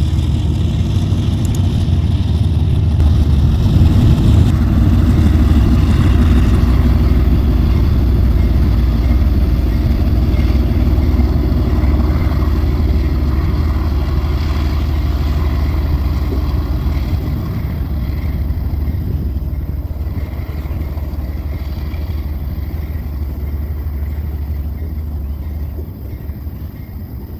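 Two GE ES44ACi diesel-electric locomotives with V12 GEVO engines rumbling deep and low under load, pulling a loaded freight train up a grade. The rumble is loudest about four seconds in, then slowly fades and drops away near the end.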